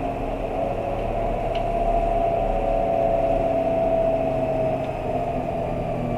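Cabin sound of an Isuzu Erga PJ-LV234N1 bus under way: its 6HK1-TCC diesel engine running with a steady hum and road noise, the air conditioning on. The hum swells a little through the middle and eases off near the end.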